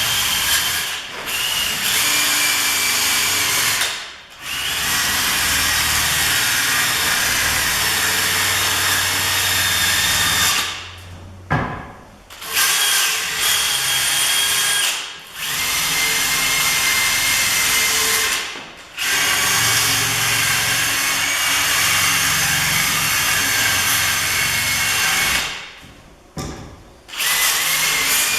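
Electric power sander running loudly against old varnished wooden wainscoting boards, sanding off the varnish, with a steady whine in runs of a few seconds broken by brief pauses about six times.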